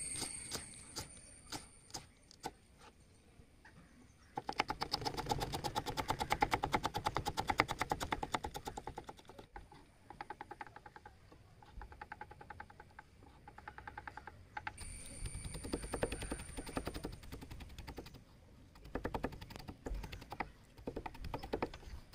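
Kitchen knife chopping garlic on a wooden cutting board: long runs of fast, sharp taps of the blade on the board, broken by short pauses. A few single knife clicks at the start as ginger is sliced.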